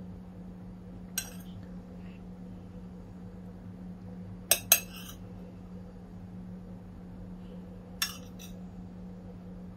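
Metal spoon clinking against ceramic plates while pieces of barbecue meat are scooped up and set onto a paratha pizza: one clink about a second in, two quick clinks around the middle, and another near the end, each with a brief ring. A steady low hum runs underneath.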